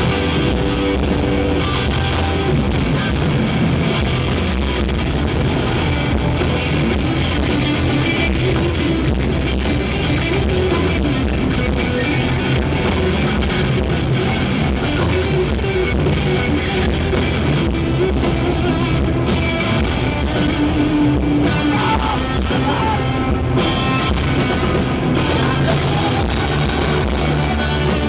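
Live rock band playing loud and steady: electric guitars over a driving drum beat.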